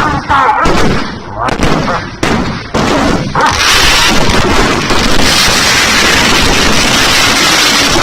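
Fireworks and firecrackers going off, loud. There are separate bangs in the first few seconds, then from about three and a half seconds in a dense, unbroken crackle.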